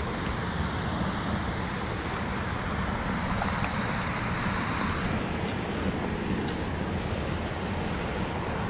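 Steady rush of water pouring over a low dam spillway, with a low rumble underneath.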